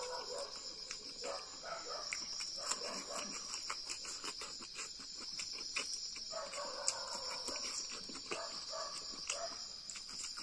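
Insects chirring steadily on one high pitch, with close-up mouth sounds of eating by hand: soft chewing and lip-smacking clicks.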